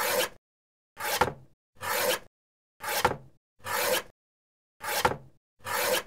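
Paper cutter making seven separate cuts. Each is a short slicing swish about half a second long with a sharp snap in the middle, with silence between strokes.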